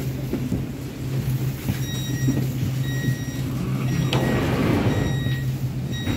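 Warsaw Metro train interior as it comes to a standstill at a station: a steady low hum from the train's equipment, intermittent high-pitched beeping from about two seconds in, a hiss around four seconds in, and a sharp knock at the very end.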